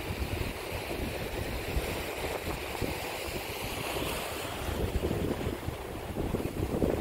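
Sea surf breaking and washing against rocks, with gusty wind buffeting the microphone.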